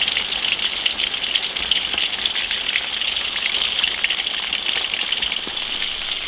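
Starch-coated pork ribs deep-frying in a wok of hot oil: a steady, crackling sizzle.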